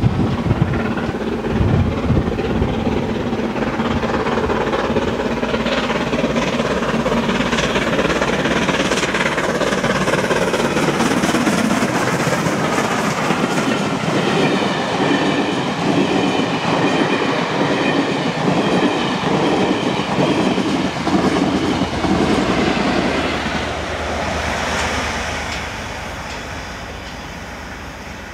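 Steam locomotive hauling a train past a level crossing, followed by the rhythmic clatter of carriage wheels over the rail joints. It fades as the train draws away near the end.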